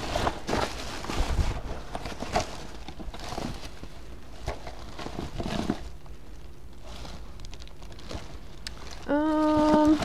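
Plastic garbage bags, tissue paper and a cardboard shoebox rustling and crinkling as they are handled, in a string of short crackles. About nine seconds in, a steady hum about a second long, louder than the rustling.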